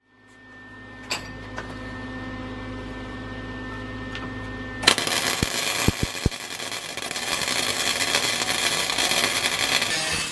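Electric arc welding on a steel push-mower deck: a loud, crackling hiss that starts abruptly about five seconds in. Before it there is a steady low electrical hum with a few faint clicks.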